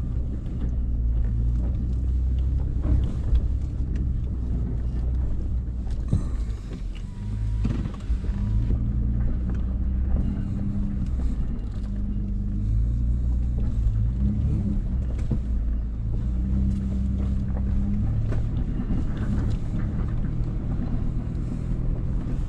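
Nissan Frontier Pro-4X's V6 engine pulling at low speed in four-wheel-drive low, heard from inside the cab, its pitch stepping up and down as the truck crawls over a rough dirt trail. A few knocks break in along the way.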